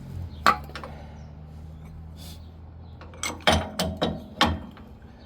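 Sharp metal clinks and knocks of steel tools working a ball joint press: one about half a second in, then a quick run of four or five near the end, over a steady low hum.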